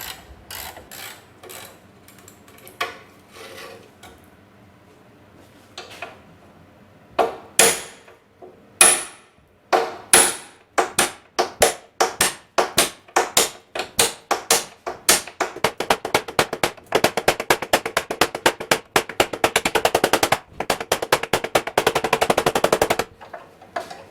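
Repeated sharp metal-on-metal impacts with a ringing tone, the sound of parts of an old Honda ATC 90 being worked loose. A few scattered blows at first, then a run of strikes about two a second, quickening into a fast continuous rattle of impacts for several seconds that stops abruptly near the end.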